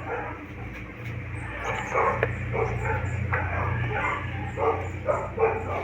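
A dog barking and yipping repeatedly in quick short calls, over a steady low hum.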